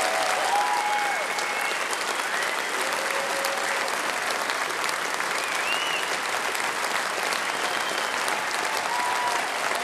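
Large audience applauding steadily, a dense, even clapping with a few voices calling out over it.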